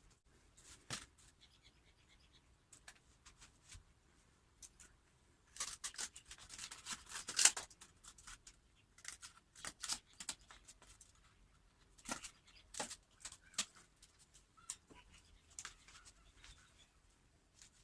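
Cardboard being handled and worked by hand: scattered light scrapes, rubs and clicks, with a busier, louder run of scraping about six seconds in.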